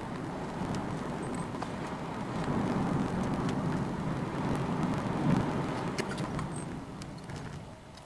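Road and tyre noise inside the cabin of a Honda Freed Hybrid driving along a city road, a steady low rumble that grows quieter near the end.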